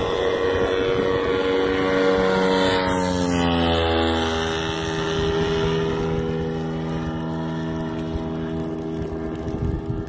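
Propeller engine of a fixed-wing attack drone droning as it flies low overhead. Its pitch slides down as it passes, about two to four seconds in, then holds steady as the sound slowly fades.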